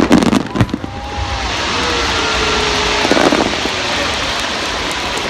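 Fireworks display: a few sharp bangs in the first second, another burst about three seconds in, and between them a steady rushing, crackling hiss.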